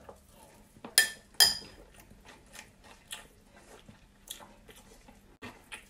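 A mouthful of Coco Pops (puffed chocolate rice cereal) in milk being chewed, with faint crunching. About a second in, two sharp clicks of the metal spoon knocking against the glass bowl stand out as the loudest sounds.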